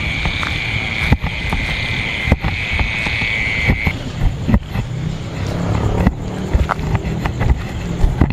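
Knocks and rubbing from a handheld camera carried at walking pace. A steady high-pitched drone runs for about the first four seconds and then stops, and a low hum comes in during the second half.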